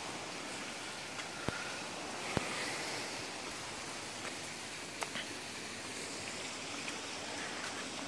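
Steady rushing outdoor noise, like running water or wind on the microphone, with a few short sharp clicks about a second and a half, two and a half and five seconds in.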